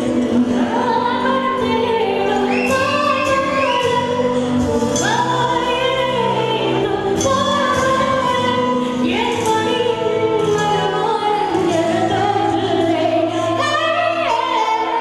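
A woman singing a Tamil song live into a handheld microphone, with held, gliding notes over instrumental accompaniment.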